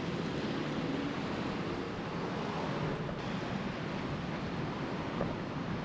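Steady rushing wind on the microphone of a moving bicycle, mixed with the noise of road traffic alongside.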